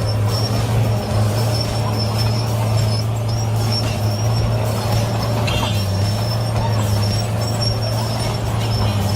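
A large engine on heavy machinery running steadily at a constant pitch, with a faint high whine on top that comes and goes.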